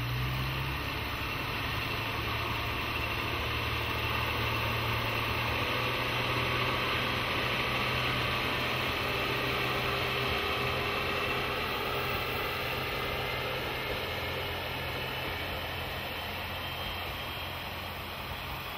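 Diesel railcar of the AN-8800 series running past slowly, its engine humming with wheel and rail noise. It grows louder as the car draws level and fades gradually as it moves away.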